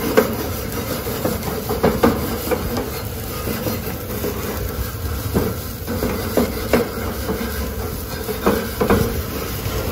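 Grill brush scrubbing the metal grates of a gas barbecue: a run of irregular scraping strokes with sharp clacks of the brush against the bars, over a steady low rumble.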